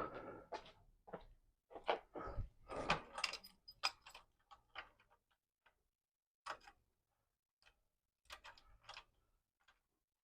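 Irregular clicks, taps and knocks of a steel quick-release bicycle rack being handled and fitted onto a bicycle's seat post and frame, busiest in the first few seconds, then a few more knocks near the end.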